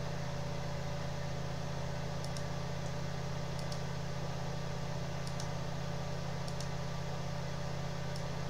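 Steady low electrical hum and hiss from a computer recording setup, with faint mouse clicks every second or so.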